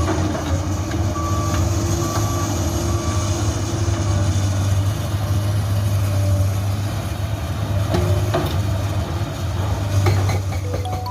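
Komatsu PC200-8 excavator's diesel engine running steadily, with a few sharp knocks about eight and ten seconds in.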